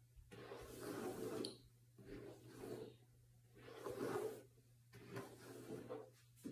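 Long straight hair being smoothed through with the fingers and a comb: about four soft rustling swishes.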